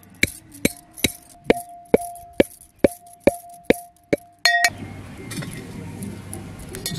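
Pestle pounding cumin seeds and black pepper in a mortar: about ten sharp, ringing strikes, roughly two a second, that stop a little over four seconds in. A steady low rushing noise follows.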